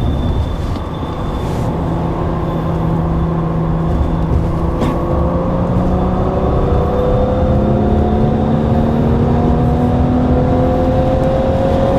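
Cadillac CTS's twin-turbo V6 pulling hard under full throttle. Its pitch climbs slowly and steadily through one gear, with heavy wind and road noise and a brief click about five seconds in.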